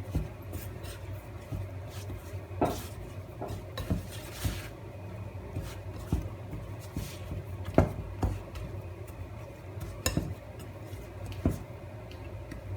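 Hands kneading flour-dusted pizza dough in a dish, with rubbing and scattered sharp knocks and clinks against the dish, over a low steady hum.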